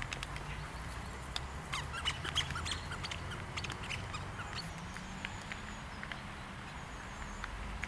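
Outdoor ambience with small birds chirping in the background, scattered light ticks and a steady low hum underneath.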